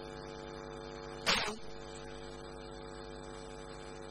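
Steady electrical mains hum with many evenly spaced overtones. About a second in it is broken by one short, sharp noise, the loudest moment.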